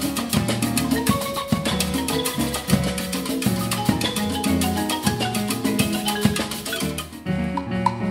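Live percussion ensemble playing Latin music: marimba, timbales, congas and drum kit with electric keyboard, a dense, fast rhythm of strikes under pitched marimba notes. Near the end the playing thins briefly and a new pattern starts.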